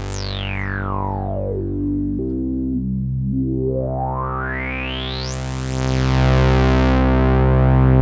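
Moog Prodigy analog monosynth holding low notes while its resonant filter cutoff is swept by hand. The filter sweeps down from the top to the bass over about two seconds, then, after a note change, rises back up to the top and the sound gets louder. Delay repeats trail the downward sweep.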